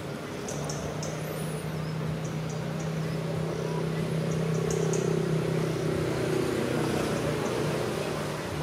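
A motor vehicle's engine hum in the background that swells to its loudest around the middle and fades again, as of a vehicle passing. Faint high chirps sound above it.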